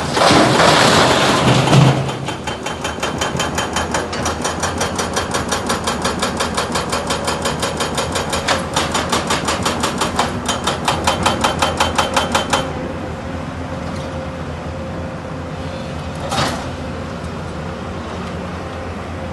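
Sany 220 excavator running, with a rapid, even series of sharp knocks for about ten seconds that stops abruptly, leaving the steady engine hum.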